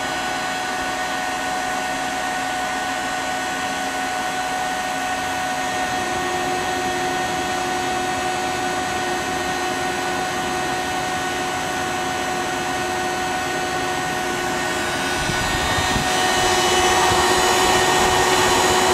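Steady whirring hum of a powered-up CNC Swiss-type lathe and its motors and pumps, with several steady tones. A new tone joins about six seconds in, and the sound grows louder near the end.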